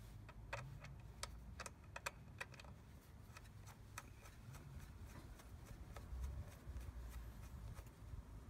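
Faint scattered clicks and light metal taps of a bolt being handled and started by hand into the oil check hole of a Honda Elite 250 scooter's final drive case, most of them in the first four seconds, over a low rumble.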